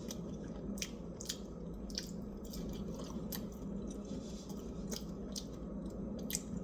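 A person chewing fries close to the microphone: irregular soft, wet clicks and squishes.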